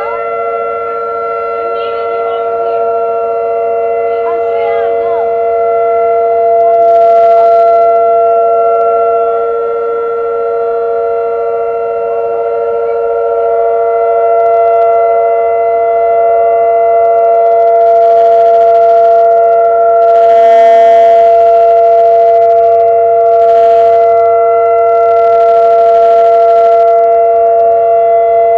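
Several outdoor warning sirens at different distances, Whelen 2806 and 2905 among them, sounding a steady Alert tone at once. Their different pitches overlap into one unbroken, slightly dissonant chord. People's voices rise over it at times, about seven seconds in and again through the later part.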